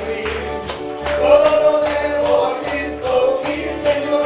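Upbeat gospel-style worship music with singing over a steady beat, tambourine and bass.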